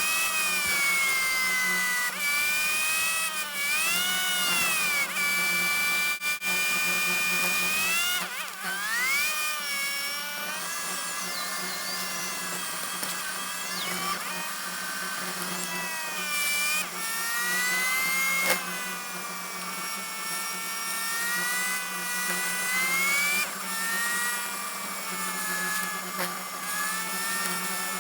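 Heavy diesel vehicle engine running under changing load, its high whine rising and falling smoothly as the revs go up and down, over a steady low hum.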